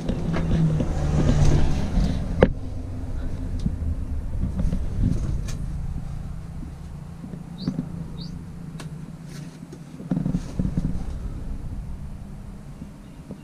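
Camera handling and movement noise as the camera is carried and pointed into the compartment: a low rumble for the first couple of seconds ending in a sharp knock, then quieter rustling with scattered clicks and knocks. Two short high chirps sound near the middle.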